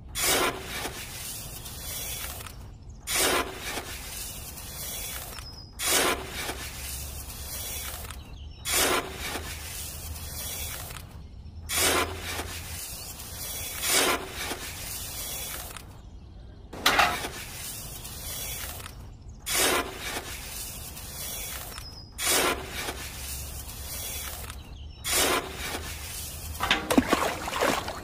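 Dry sand and cement being scooped and poured from small metal buckets: a series of short rustling, hissing pours and scrapes, each starting with a louder rush and broken off by a brief silence about every three seconds.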